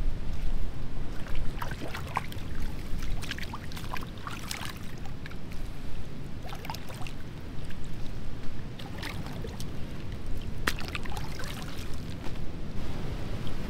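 Hands swishing and scrubbing ti leaves in shallow tide-pool water: irregular small splashes and drips, over a steady low rumble.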